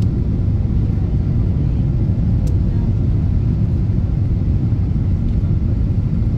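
Steady low rumble inside the cabin of a Boeing 777-200ER on final approach, from its engines and the rushing air, heard from a seat beside the wing with flaps extended.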